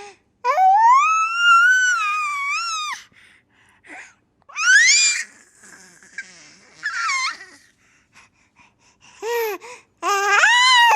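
A baby squealing in high-pitched bursts: one long drawn-out squeal that rises and holds for a couple of seconds, then several shorter rising squeals with short breaths between.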